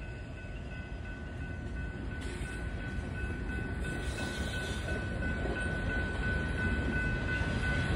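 Norfolk Southern mixed freight train rolling through a grade crossing, its locomotives and then freight cars passing with a steady rumble that slowly grows louder, and a steady high ringing tone over it.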